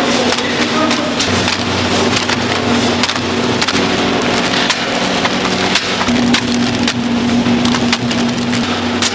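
Automated fried-rice production-line machinery running: a steady mechanical hum under constant, irregular clattering and ticking.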